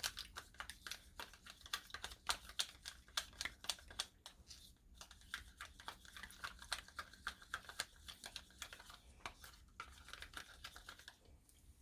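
A spoon stirring layered pudding in a small plastic cup, clicking and scraping quickly against the sides and bottom, several clicks a second, with a brief pause near the end.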